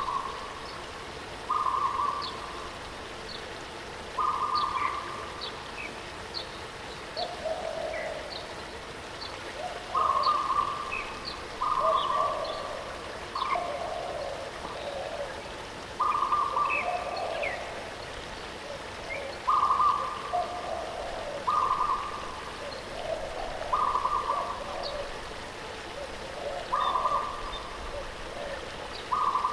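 Birds calling over the steady hiss of a waterfall: a short mid-pitched call repeats every second or two, lower calls come in between, and brief high chirps are scattered throughout.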